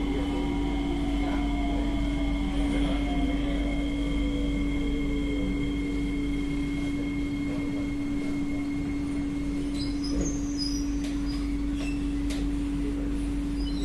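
C151B MRT train braking into a station: its traction motors whine in a falling pitch over a steady hum, and a few short high squeaks come about ten seconds in.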